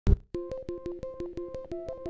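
Background music: a repeating pattern of short notes over a quick, even ticking beat of about six ticks a second, after a single low thump at the very start.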